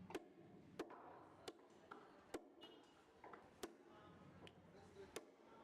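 A knife chopping fish on a cutting block: about seven sharp knocks at uneven intervals, under a faint murmur of background voices.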